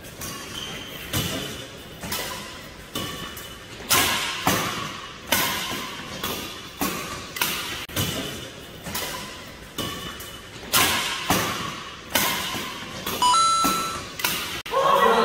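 Badminton rackets striking a shuttlecock again and again in a fast doubles rally, about two sharp hits a second, each echoing in the hall.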